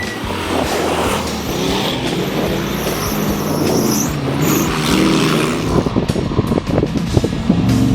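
Off-road race vehicle engine revving hard, its pitch rising and falling, over rough running noise, with a run of sharp crackles in the last two seconds.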